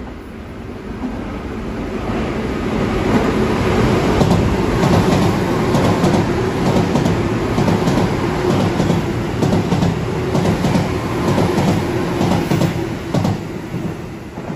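Tobu 10050 series ten-car electric train passing through a station without stopping. The sound builds as it approaches, then comes a long run of wheel clicks over rail joints as the cars go by. It drops away about thirteen seconds in, once the last car has passed.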